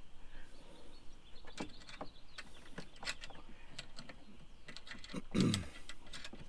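Scattered light metallic clicks and taps as a steel fire extinguisher bracket and its screws are handled and set in place on a mounting plate, with one louder knock about five seconds in.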